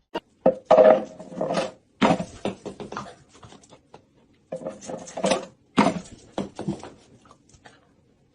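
A dog vocalizing in a series of short separate bursts, the loudest about a second in and again around the middle.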